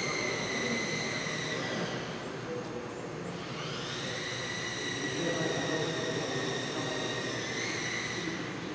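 Small electric RC plane's motor and propeller whining in flight. The whine dies away about two seconds in and comes back about a second and a half later.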